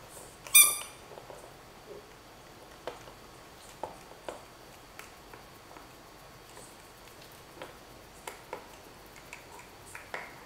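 A rubber chicken squeaky dog toy gives one short, loud, high squeak about half a second in as the dog bites it. Scattered soft clicks and taps of the dog's chewing on the rubber toy follow.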